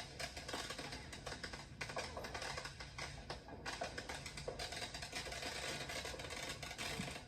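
Fireworks crackling: a dense, irregular run of small pops and snaps.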